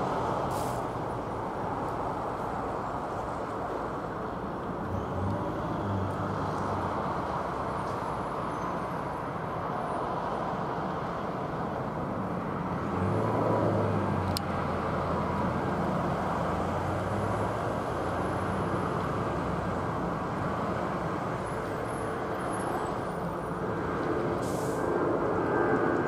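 Jet engines of an Airbus A320-214 (CFM56) heard from below as the airliner climbs out overhead: a steady, dull rumble that grows a little louder near the end. A low engine hum from road traffic joins for a few seconds past the middle.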